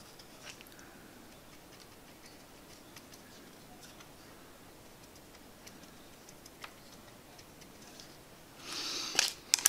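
Light, scattered ticks of a small plastic tub being tapped to sprinkle fine dirt onto glue, then a louder rustle with a few sharp clicks near the end.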